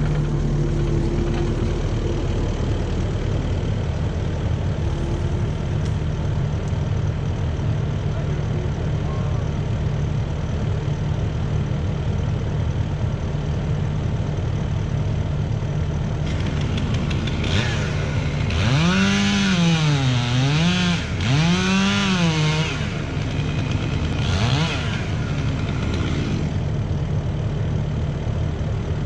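Skid steer engine running steadily under load while pushing a tree over. Midway through, crackling and breaking noise builds and lasts several seconds as the tree gives way, and a pitched sound rises and falls twice in the middle of it.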